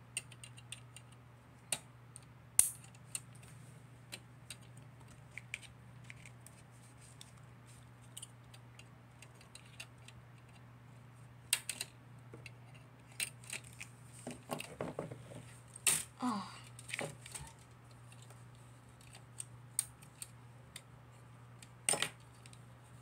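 Plastic Gundam model-kit parts being detached from their runner: scattered sharp clicks and snaps of plastic, with handling of the pieces, over a low steady hum.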